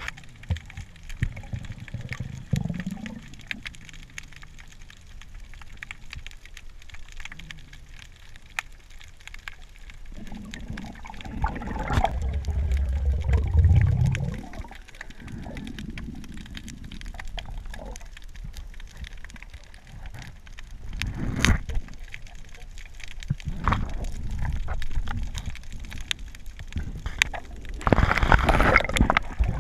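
Water moving around an underwater camera while a freediver swims in kelp: a muffled low rumble that swells and fades, with scattered sharp clicks and crackles. The rumble is loudest about halfway through and again near the end.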